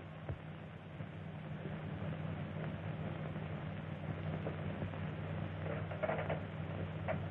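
Steady hiss and low hum of an early-1930s film soundtrack, with a couple of faint, brief sounds near the end.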